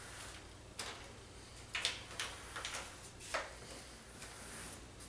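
A series of about half a dozen light clicks and knocks from a plastic hard drive sled being handled at a computer case's drive cage.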